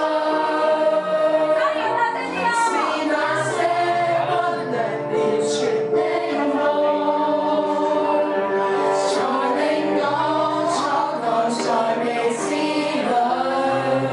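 Young female voices singing a song together through a microphone, over a low bass line that moves in held notes.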